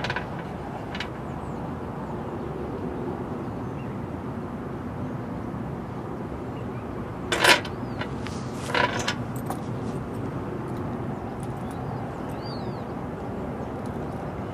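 Steady outdoor background noise with a low rumble, broken by two short clinks about seven and nine seconds in, the first the louder.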